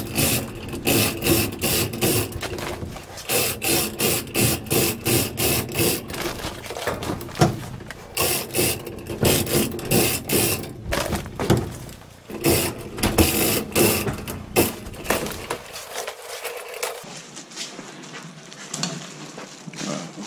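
Hand-operated chain pulley hoist lowering a loaded basket: the chain clacks and rattles through the pulley several times a second, a bit noisy. Near the end it gives way to quieter handling noise.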